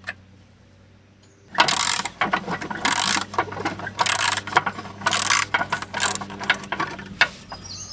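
Hand ratchet wrench clicking in a run of quick back-and-forth strokes, about a second and a half in, as it backs out a rusty tractor seat-mounting bolt.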